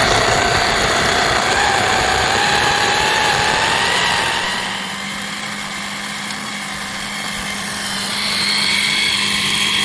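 Blender motor running flat out with a high whine, blending avocado, green pepper, onion and garlic into a thick sauce. The whine rises a little in pitch over the first few seconds, dips in level in the middle and picks up again near the end.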